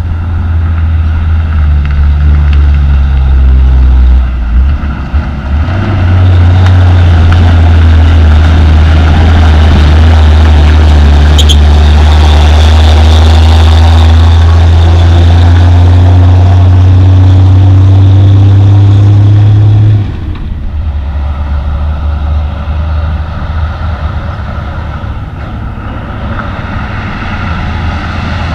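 Diesel engine of a loaded Hino coal dump truck passing close, running loud and steady with its engine note slowly rising. About 20 seconds in it drops suddenly to a quieter low rumble of trucks further off.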